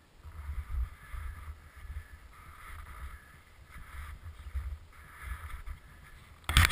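Wind buffeting the camera's microphone in uneven gusts, with rustling. About six and a half seconds in, a sudden loud rubbing and knocking as a gloved hand takes hold of the camera.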